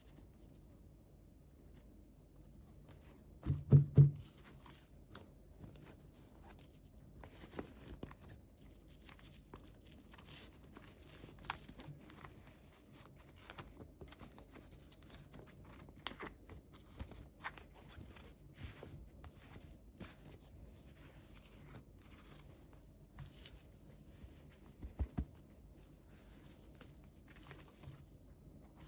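Toy packaging being torn open and crinkled by hand, with scattered small clicks and taps. A few low thumps about four seconds in are the loudest sounds, and there are two softer ones near the end.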